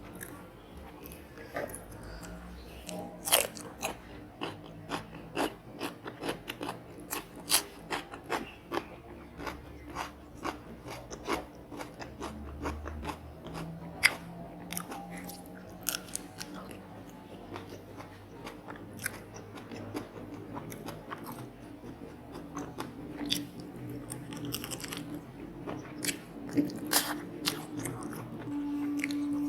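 Close-up crunching and chewing of crisp battered fried squid: many sharp, irregular crunches from bites and chews, with quieter chewing in between.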